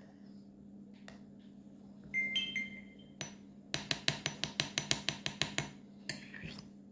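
A metal spoon clinking against a glass jar of honey-and-ginger mixture: one ringing clink about two seconds in, a knock, then a quick run of about a dozen clinks lasting about two seconds, over a faint steady low hum.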